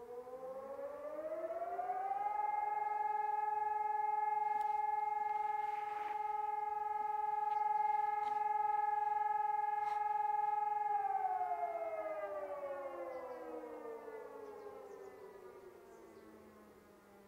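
Civil-defence siren sounding one long tone of a test fire-alarm signal. It winds up over about two seconds, holds one steady pitch for about nine seconds, then winds down slowly to the end.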